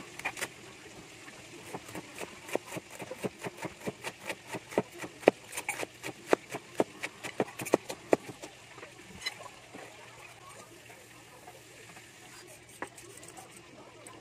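Kitchen knife shredding cabbage on a cutting board: a steady run of chopping strokes, about four a second, thinning to occasional taps after about eight seconds.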